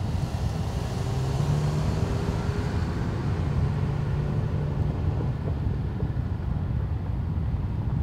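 Concrete mixer truck's diesel engine running steadily with a low hum.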